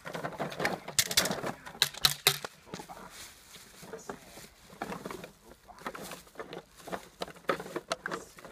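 A puppy biting and tugging at a rag on a crinkly plastic tarp, with rustling and low growls. There are a few sharp smacks in the first two seconds or so.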